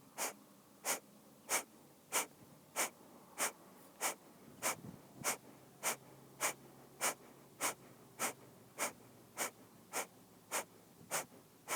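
Kapalbhati breath of fire: a steady train of short, forceful exhales snorted out through the nose, about one and a half to two a second, each a sharp puff of air with the inhale in between passive and almost silent.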